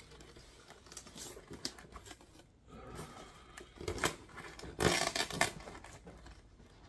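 A knife cutting through the tape and paper wrapping of a shipping package, with scraping and rustling of the packaging. The loudest bursts come about four and about five seconds in.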